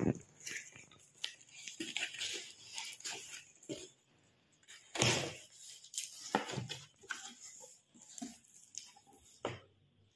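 Cardboard shipping box being opened by hand: packing tape and flaps pulled apart, giving irregular scraping, rustling and crinkling, loudest about five seconds in and again near the end.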